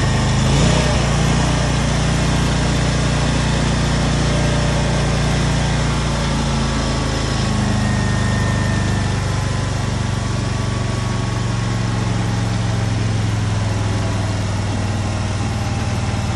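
Scag Patriot zero-turn mower's V-twin engine running steadily, its note shifting slightly about halfway through.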